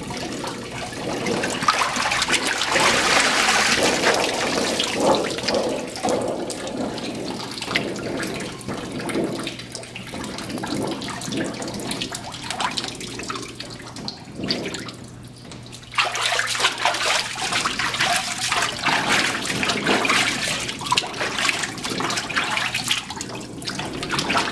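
Water sloshing and splashing in a hydrographic dipping tank as a dipped helmet is worked through the water and lifted out; the splashing eases off briefly a little past halfway, then picks up again.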